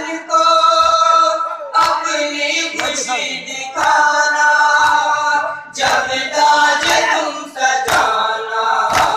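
Men chanting a noha (Shia mourning lament) together in long sustained notes, led over a microphone. A few sharp slaps of hands beating on chests (matam) cut through the singing.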